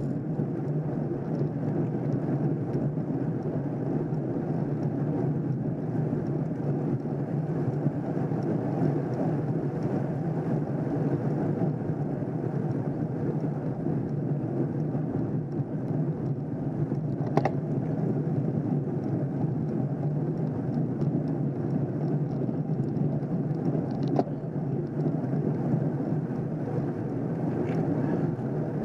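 Steady low noise of a road bike riding in a cycling bunch on a climb, heard through the rider's bike-mounted camera: wind buffeting the microphone together with tyre and road noise. Two brief sharp clicks sound, the first a little past halfway.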